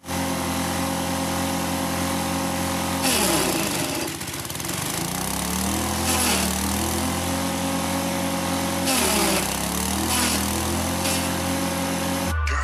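Small stationary engine driving a multipurpose forage chopper (chaff cutter), running steadily. Three times, about every three seconds, its pitch sags and then recovers as stalks and leafy greens are fed in, each time with a burst of shredding noise from the cutting.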